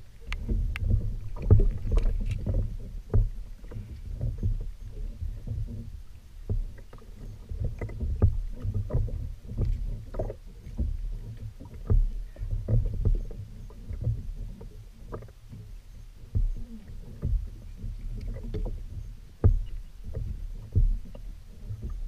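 Irregular knocks, bumps and light clicks on a plastic fishing kayak as a spinning rod is reeled in and a small fish is handled aboard, over a low steady rumble.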